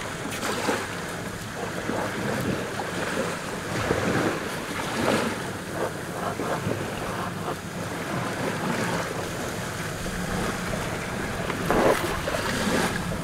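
Wind gusting across the microphone, with small waves lapping around the boat underneath.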